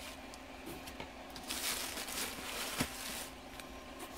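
Plastic packing material rustling and crinkling for about two seconds, with a few light knocks and one sharp click, as items are handled and lifted out of a box lined with bubble wrap.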